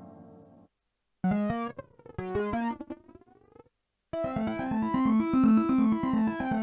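Yamaha Reface DX FM synthesizer playing patch demos. A held, brass-like tone fades out. After a short gap come a handful of short plucked notes, then about four seconds in a fast repeating arpeggio starts, its brightness sweeping up and then back down.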